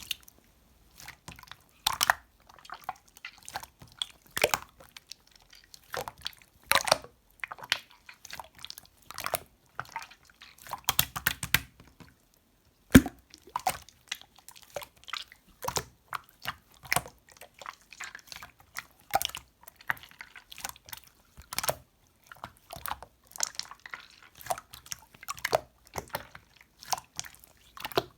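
Slime being squished and pressed by hand, making irregular wet clicks and pops, with one sharper pop about halfway through.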